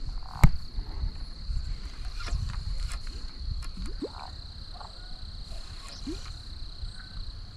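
Insects trilling steadily at one high pitch, with a few short rising calls and a single sharp click about half a second in.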